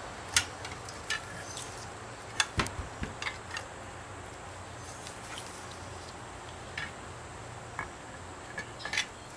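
Scattered light clicks and taps of the F4A42 transmission's aluminium valve-body castings knocking against each other and the separator plate as the upper valve body is handled and set onto the lower one, over a steady low hum.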